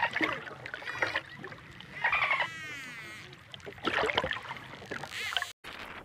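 Dolphin calls: several short bursts of buzzy, squeaky chatter about a second apart, some falling slightly in pitch. The sound cuts out briefly near the end.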